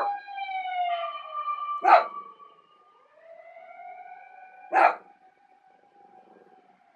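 A wailing siren whose pitch falls, breaks off, then rises again, answered by a senior miniature dachshund with two sharp barks about two and five seconds in. The siren fades to faint after about five seconds.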